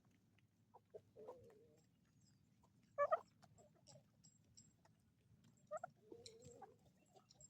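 Chickens clucking quietly, with a louder, sharper call about three seconds in.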